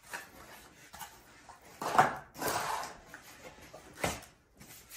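A folding solar panel in its fabric carrying case scraping and rustling against its cardboard shipping box as it is lifted out. There are a few short scrapes, the loudest about two seconds in.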